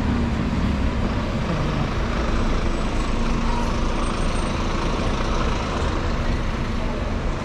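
Steady city-centre traffic noise, with bus engines running.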